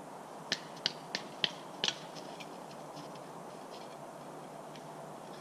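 Dry wood cracking: five sharp, quick cracks about half a second in, then a few fainter ticks over a steady hiss.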